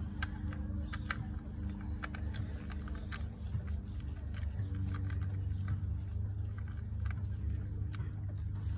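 Scattered light clicks of a 10 mm socket wrench working a stubborn coil-pack bolt on the engine, over a steady low mechanical hum.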